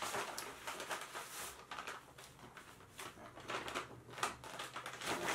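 Paper takeout bag and paper food wrapping crinkling and rustling as hands dig into the bag and pull the wrapped food out, busy at first, quieter in the middle, then busy again near the end.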